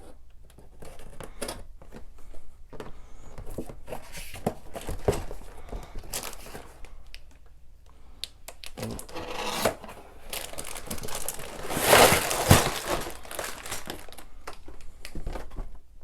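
Plastic bags of LEGO pieces and the set's box being handled while unpacking: irregular crinkling and rustling with small clicks, louder for a moment about twelve seconds in.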